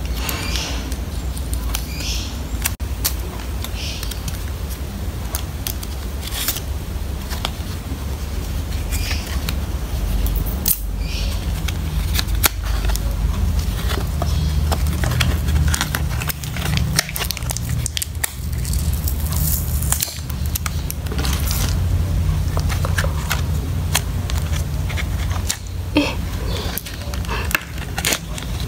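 Cardboard photocard mailers and clear plastic photocard sleeves handled and opened by hand: scattered crinkles, scrapes and small clicks over a steady low hum.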